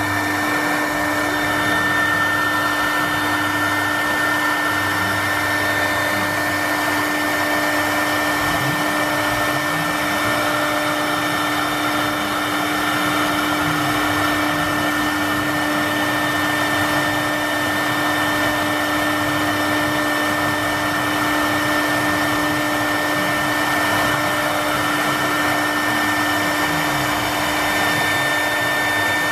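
Spindle motor of a W1325VD3 three-spindle CNC wood router running at speed: a loud, steady whine over a rushing noise, with faint low tones rising and falling now and then beneath it.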